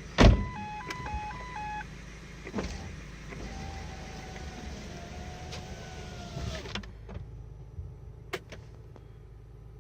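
Ford Focus II 1.6 engine running, heard from inside the cabin, over a steady low hum. A thump near the start is followed by a short alternating two-tone electronic chime, then a power window motor whining for about three seconds. It ends in a click as the outside hiss drops away.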